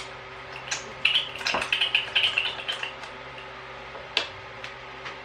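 Small clicks and squeaky scraping of an RC shock being worked open by hand, its bottom cap coming off to free the seals. A busy run of clicks and squeaks lasts from about one to three seconds in, with a few single clicks before and after.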